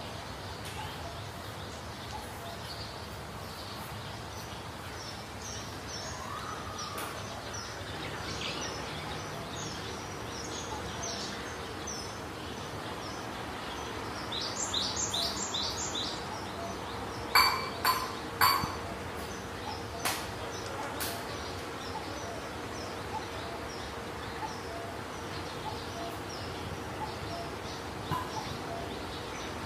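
Small birds chirping repeatedly in the background over a steady hiss, with a quick run of chirps around the middle and three loud, sharp sounds close together just past halfway.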